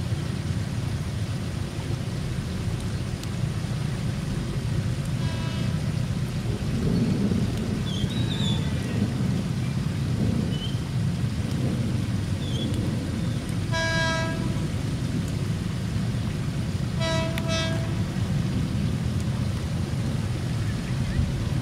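Horn of an approaching KRL commuter electric train (ex-Japanese 205 series): a faint toot about five seconds in, a louder toot past the halfway point, then two short toots close together. Under it runs a steady rush of heavy rain.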